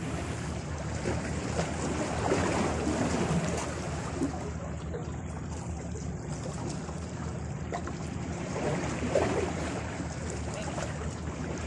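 Wind rumbling on the microphone over small waves washing against shoreline rocks, swelling a little now and then.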